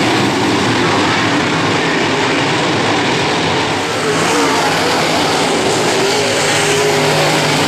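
Several dirt modified race cars' V8 engines running hard around a dirt oval. The sound is loud and continuous, and the engine pitch rises and falls as the cars go through the corners and down the straights.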